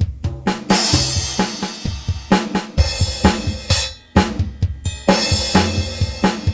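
E-mu Pro/Cussion percussion module playing a preset drum-kit pattern of fast, sharp drum hits. The pattern breaks off briefly about four seconds in, then starts again.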